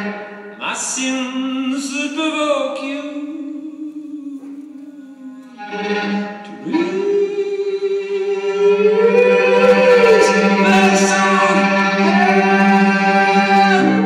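Live music led by a bowed violin: sliding melodic lines over a steady held low note, quieter in the first half and swelling from about six seconds in.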